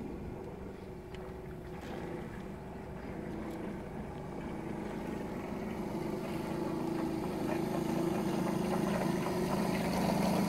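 Model steam boat's small 8 cc four-cylinder V single-acting steam engine running with a steady hum, growing louder as the boat comes closer.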